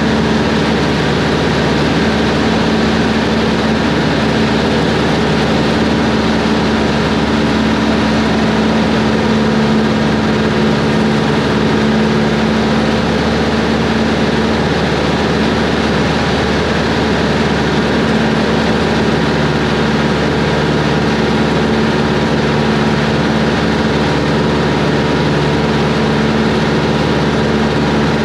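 Cessna 140 light plane's engine and propeller running in flight, a steady drone that does not change.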